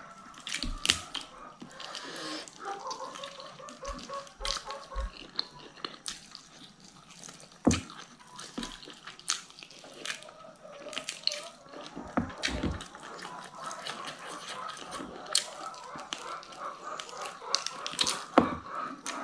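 Close-up eating sounds: wet chewing, sucking and lip smacks as meat is gnawed off a chicken bone, with many sharp mouth clicks at irregular moments.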